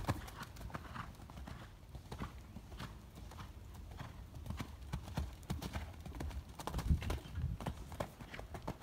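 Hoofbeats of a horse shod with steel shoes, going over a sand arena: a run of dull thuds at a canter, slower for a while in the middle, with the loudest strides about seven seconds in.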